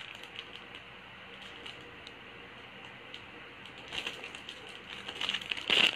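Faint clicking and rustling of small plastic-bagged minifigures being handled, mostly quiet, with a short cluster of clicks about four seconds in and another near the end.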